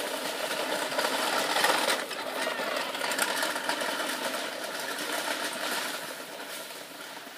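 Wheels of children's ride-on toy tractors rattling over a dusty dirt driveway: a continuous clatter that fades near the end as the riders move away.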